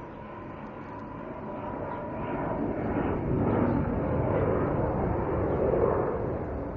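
Airplane flying over: its engine noise swells to a peak about halfway through, with a sweeping, phasing quality, then eases off.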